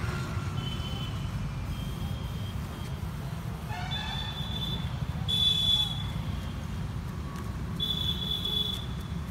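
Outdoor ambience: a steady low rumble with five short, high-pitched tones, each under a second long, the loudest about five and a half seconds in.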